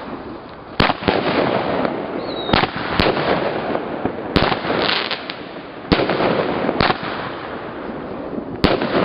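Aerial fireworks shells bursting overhead: about seven sharp bangs at irregular intervals, with crackling in between and a brief high whistle a little over two seconds in.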